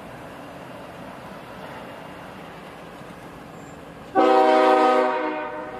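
Diesel locomotive air horn sounding one blast about four seconds in: a chord of several tones that starts suddenly, holds for about a second and fades over the next half second.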